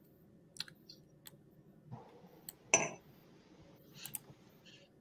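Faint scattered clicks over a quiet, low hum of room tone on an open call line, with one brief louder noise a little past the middle.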